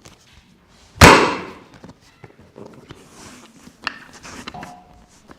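A single loud slam on a chiropractic treatment table about a second in, sharp with a short fading tail, then a few faint clicks.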